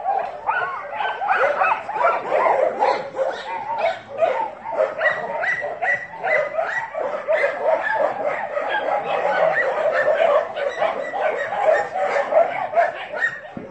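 Dogs yipping and whining at play, a dense, unbroken run of short high-pitched calls.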